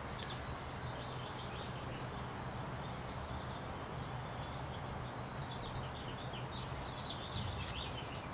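Outdoor background: a steady low hum with faint bird chirps now and then, more of them in the second half.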